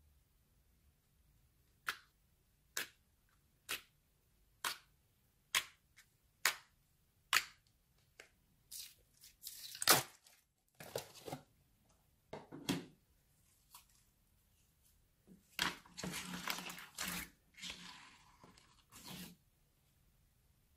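Old slime peeling away from a plastic tub: a run of sharp pops about one a second as it unsticks, then louder sticky crackling and squelching as it is pulled out by hand and folds into a plastic tray.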